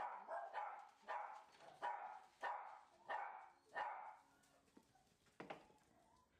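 A dog barking over and over, about one bark every two-thirds of a second, stopping about four seconds in. A single sharp knock follows a little later.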